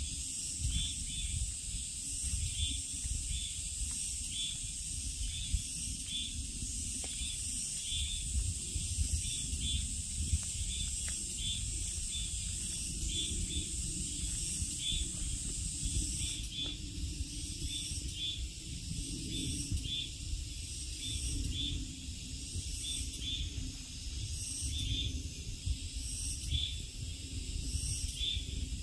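A summer forest insect chorus: a steady high hiss, with a short chirp repeating about twice a second, over a low, uneven rumble.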